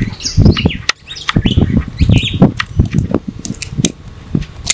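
Metal buckles and carabiners of a climbing safety harness clicking and rattling as it is unbuckled, with birds chirping.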